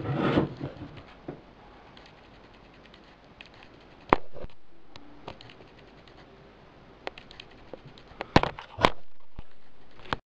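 Rustling at the start, then half a dozen sharp clicks and knocks spread out over several seconds: hands handling computer case parts while fitting a case fan.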